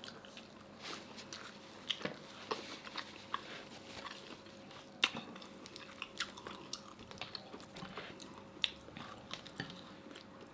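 Close-miked mouth sounds of people eating frog legs: irregular soft clicks, smacks and small crunches of biting and chewing.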